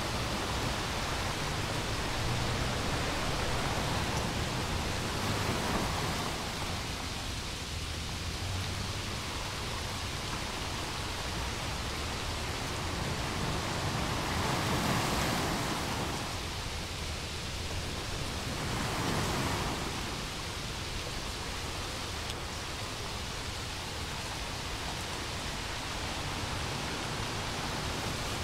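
Steady hiss of rain falling, swelling louder a few times, with a low rumble underneath.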